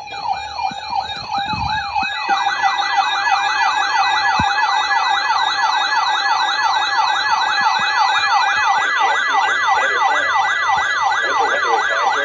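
Emergency Alert System alert audio: a siren-like tone sweeping up and down about three times a second, over steady alert tones. The lower steady tone drops out about three-quarters of the way through.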